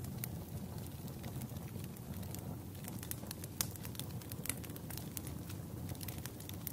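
Small campfire crackling, with irregular pops and snaps over a steady low rush.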